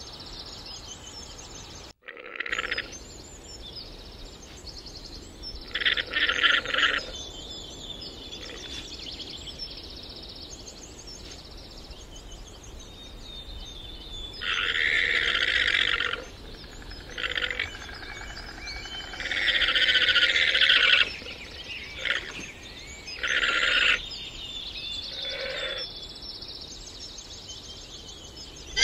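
Llamas calling: a run of high, rasping calls, some short and some lasting a second or two, spaced irregularly over faint steady background noise.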